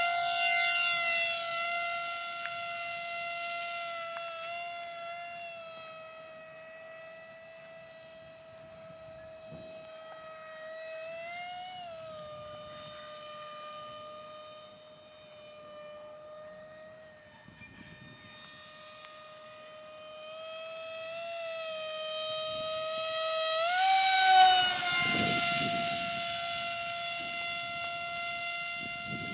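Electric RC plane in flight: its 2212 2200kv brushless motor and 6x4 propeller give a steady high whine. The whine fades as the plane climbs away, rises in pitch twice as the motor speeds up, and is loudest on the second rise as the plane passes closer, then fades again.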